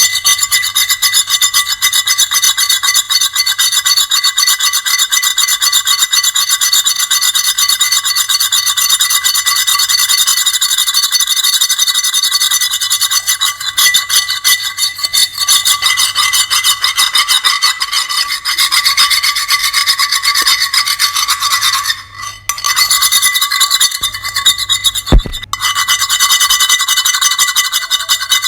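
Continuous grating, high-pitched scraping made of rapid fine strokes, with a short break about 22 seconds in and a sharp click a few seconds later.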